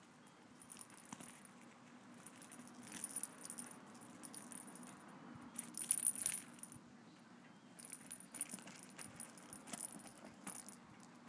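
Bell inside a plastic cat toy ball jingling in irregular bursts as a kitten bats, grabs and rolls it, loudest about six seconds in.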